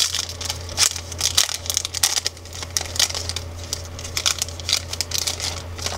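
Pokémon trading-card booster pack's foil wrapper crinkling and tearing as it is pulled open by hand: a rapid, irregular run of crackles.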